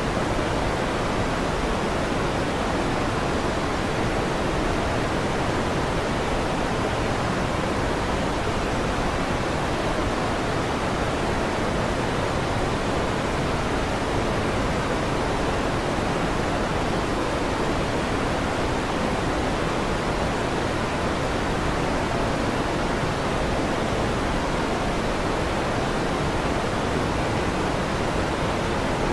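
Electric fan running, a steady even whoosh of air with no changes and no thunder claps.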